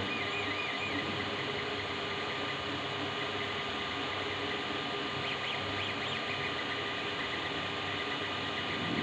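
FDM 3D printer running a print: a steady fan hum with a constant tone, and the stepper motors whining in short, wavering high-pitched chirps from about five seconds in as the print head moves.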